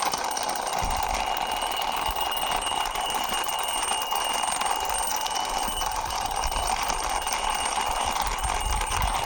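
Toy police helicopter giving off a steady buzzing whir, one even sound with a thin high whine over it and no breaks.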